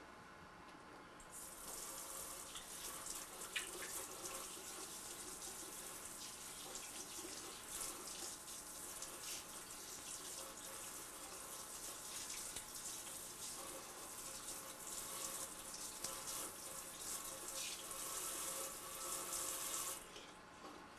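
Water running from a tap into a sink, turned on about a second in and shut off about a second before the end.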